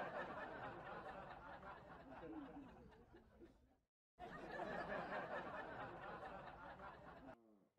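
A crowd laughing. It cuts off abruptly about four seconds in, starts again a moment later, and stops near the end.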